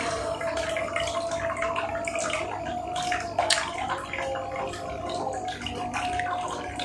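A person chewing a mouthful of fried chicken close to the microphone, with many short crunches and wet mouth clicks and smacks.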